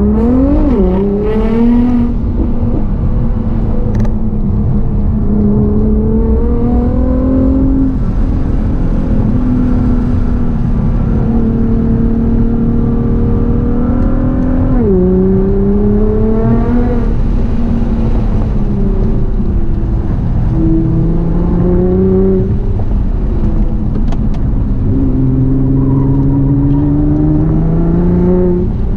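Nissan GT-R R35's twin-turbo V6, fitted with a full HKS exhaust, accelerating hard and shifting through the gears. The engine note climbs and falls over several seconds at a time, with sharp drops at upshifts about a second in and about halfway through.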